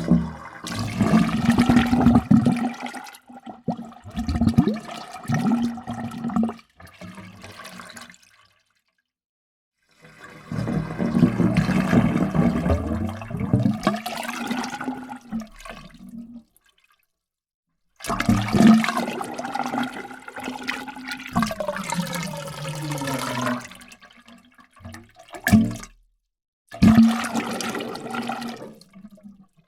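Water gurgling and glugging with a hollow, resonant tone, like water draining through a narrow opening. It comes in four separate takes with dead silence between them.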